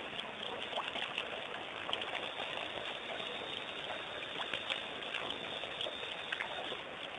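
Steady waterhole night ambience with faint trickling and small splashes of water as elephants drink, with many faint drips and clicks over a constant hiss.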